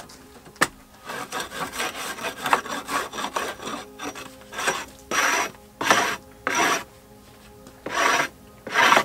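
Hatchet blade scraped along a wooden pallet slat. A single knock, then about three seconds of quick rasping scrapes, then five slower separate strokes.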